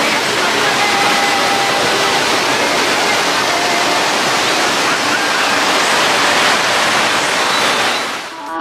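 Ocean surf breaking and washing onto a sandy beach, a loud steady rush of water that fades out near the end.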